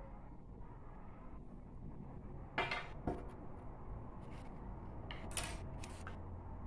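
Small clicks and knocks of a paint jar and painting supplies being handled: two sharp knocks about two and a half and three seconds in, then a few short scraping sounds near the end, over a faint low hum.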